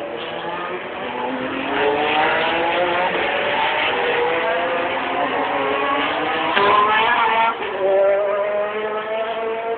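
GT3 race car engines accelerating past, several overlapping notes climbing in pitch again and again as the cars pull through the gears. Loudest about two-thirds of the way through, easing off near the end.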